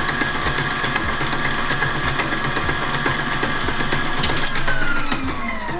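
KitchenAid 6-quart stand mixer's motor running at a steady pitch with frequent clicks, then winding down in pitch over the last second or so.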